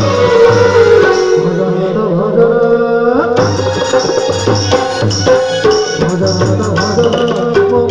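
Instrumental passage of a live bhajan: electronic keyboard and harmonium melody over hand drums. The drums drop out for about two seconds, leaving held keyboard notes that slide upward, then the drum rhythm comes back in.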